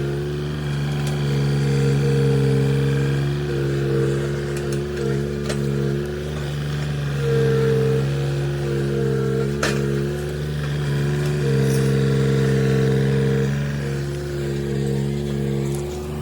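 Tata Hitachi Zaxis 33U mini excavator's diesel engine running steadily at working speed, its note swelling and easing every few seconds as the load comes on and off. A few sharp clicks are heard along the way.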